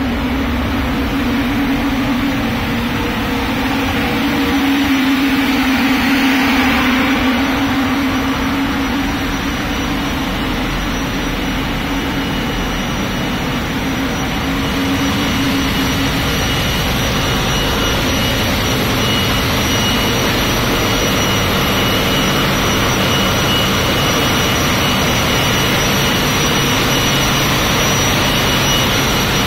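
Loud, steady machinery din of a container ship's engine room, an unbroken hum. A strong low drone fades out about halfway through, and a thin, high steady whine comes in around the same time.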